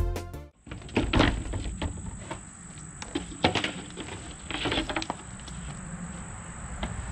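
Plywood sheets being lifted and handled on sawhorses: scattered knocks, scrapes and clatters of wood, a few sharper ones about a second in and around the middle. A steady, high-pitched insect drone runs underneath.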